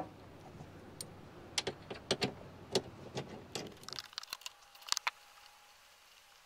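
Light, irregular metallic clicks and taps of a bolt and its hardware being worked off the soft-top mounting bracket by hand, about a dozen over four seconds, stopping about five seconds in.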